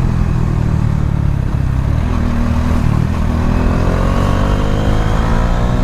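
Bajaj Dominar 400's single-cylinder engine running under way, revs climbing steadily from about three and a half seconds in as the motorcycle accelerates.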